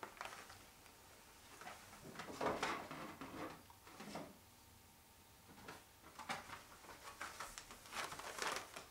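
Carded action figures, cardboard backing cards with plastic bubbles, handled and set on and taken from a wooden display shelf: scattered short rustles, scrapes and knocks.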